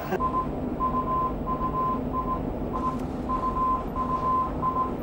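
Morse code from a ship's radio room: a single-pitched beep keyed on and off in short and long signals, over a steady hiss and low hum.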